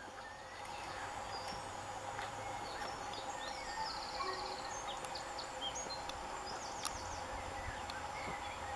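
Small birds chirping, with a short trill about four seconds in, over a faint steady two-note hum. The low rumble of a distant approaching train grows louder about seven seconds in.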